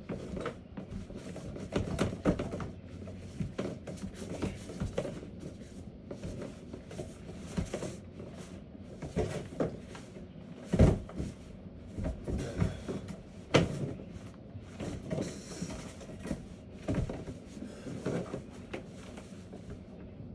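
Brush on a long pusher rod being worked through a dryer vent duct, scraping and knocking against its walls in irregular bumps and scrapes, the loudest thump about 11 seconds in, over a steady low hum.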